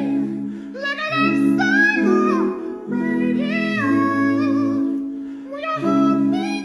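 Several men's voices singing a cappella in close harmony, with no instruments: low voices hold sustained block chords that change every second or two, and a higher lead line slides between notes above them. The phrases break off briefly between chords.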